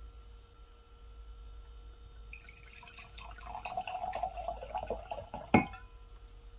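Red wine poured from a bottle into a stemmed wine glass, glugging and splashing for about three seconds. A sharp knock near the end as the bottle is set down on the table.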